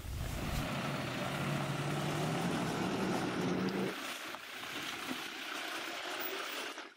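Four-wheel-drive vehicle's engine running, its pitch rising steadily for about four seconds, then dropping to a quieter, lower steady hum.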